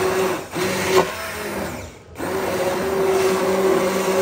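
Hand blender motor running steadily while puréeing vegetable and lentil soup in a stainless steel pot. It drops out briefly about half a second in and again about two seconds in, then runs on.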